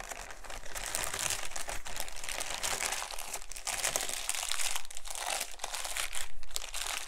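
Clear zip-top plastic bag crinkling continuously as it is opened and peeled down off a block of modeling clay.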